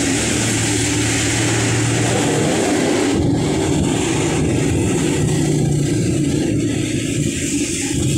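Engine of a passenger vehicle running on the road, heard from inside its open passenger cab with road and wind noise; its pitch shifts up about midway as the engine speed changes.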